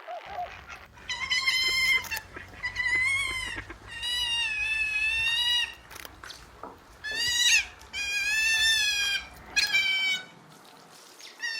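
A series of six high-pitched animal cries, each lasting from half a second to about a second and a half, several with a wavering pitch.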